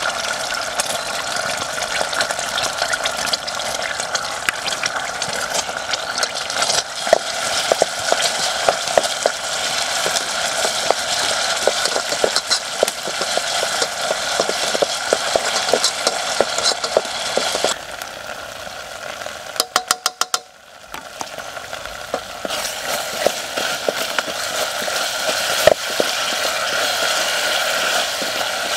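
Chili and spice paste sizzling as it fries in oil in a metal pot, a steady hiss with frequent pops and clicks as it is stirred with a wooden spoon. About two-thirds through the sound drops briefly after a quick run of clicks, then the sizzling returns.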